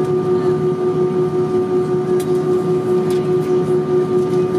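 Steady drone inside an Airbus A320 cabin, with one strong constant hum tone over a rumble and a slight even pulsing in loudness.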